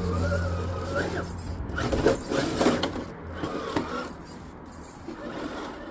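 RC rock crawler's motor and drivetrain whining as it climbs over rock, the whine rising in pitch during the first second. Scattered clicks and knocks of the tires and chassis on the rock follow.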